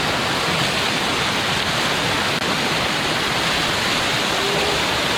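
Waterfall pouring close by: a loud, steady rush of falling water on the seventh tier of Erawan Falls.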